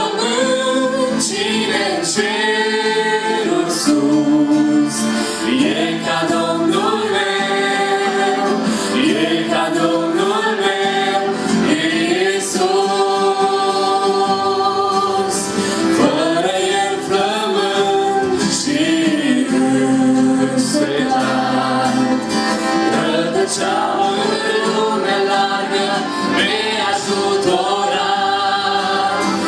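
A small group of men and women singing a song in harmony through microphones, accompanied by acoustic guitar and keyboard.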